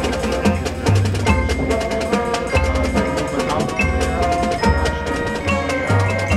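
High school marching band playing its field show: marimbas and drums strike quick notes over a repeating low bass line, with held tones from the winds.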